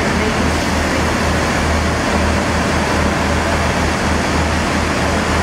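Diesel multiple unit engines running at the platform: a steady low drone that pulses gently, under a constant rushing noise.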